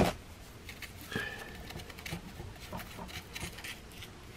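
Soft patting and rubbing of rubber-gloved fingers smoothing wet cement, with a short knock right at the start and a brief squeak about a second in.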